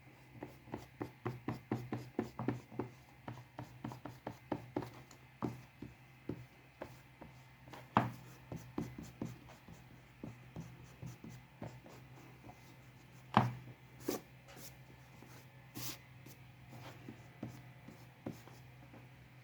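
Drawing strokes on paper: a run of short scratchy ticks, fast and dense at first, then sparser, with two louder taps about eight and thirteen seconds in.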